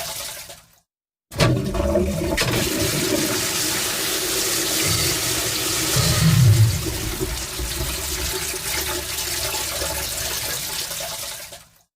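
A toilet flushing: a sudden rush of water that swells about five to six seconds in, then settles and fades out near the end.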